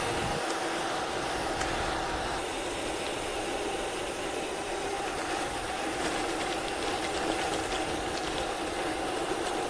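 Bicycle tyres rolling on asphalt, a steady hum with two held tones, with wind rumbling on the microphone and a few faint clicks.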